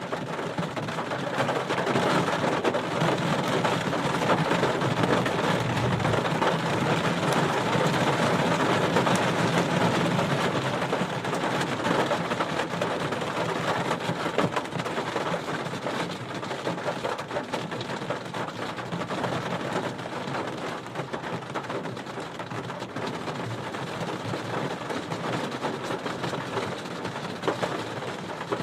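Heavy rain splattering on a car roof, heard from inside the car: a dense, steady patter of drops, a little heavier in the first half.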